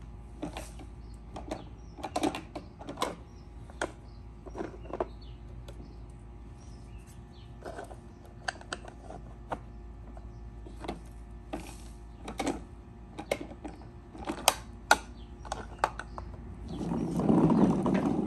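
Plastic toy garbage truck mechanisms and bins clicking and knocking irregularly as they are worked by hand, with a louder rattling rush near the end.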